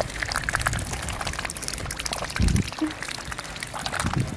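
Ducks dabbling their bills in a pool of icy slush and water: a steady patter of small splashes, trickles and clicks. A low thump comes a little past halfway.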